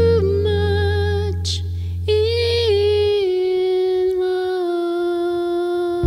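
Female vocalist singing long, slow held notes of a jazz ballad. A low bass note sustains under the voice until about three seconds in, then the voice carries on alone.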